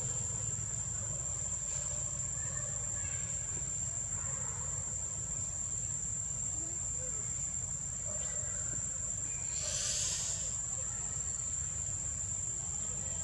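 Steady high-pitched drone of forest insects, one unbroken tone, over a low steady rumble. A brief louder hiss rises and fades about ten seconds in.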